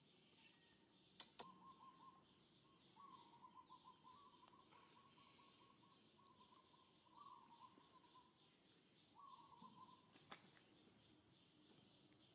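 Near silence: faint outdoor ambience with a steady high hiss, several short faint trilling calls, and two sharp clicks, about a second in and near the end.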